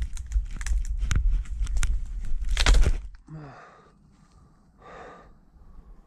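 Footsteps crunching and dry twigs crackling underfoot on a pine-forest floor, with a louder crunch about halfway through. Then the walker stops and breathes hard, with a short grunt.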